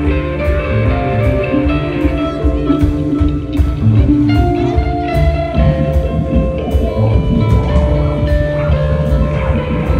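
Live rock band playing: electric guitars holding notes over bass and drum kit, with a drum hit landing about every three-quarters of a second.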